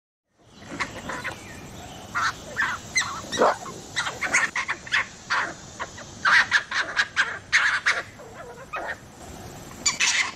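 Swift fox calling: a series of short, high yips and barks in irregular clusters, with a few gliding notes.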